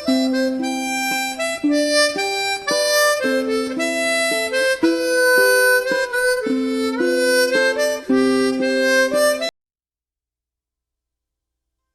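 Background music: a melody of short held notes, some sounded together, that cuts off suddenly about three-quarters of the way through.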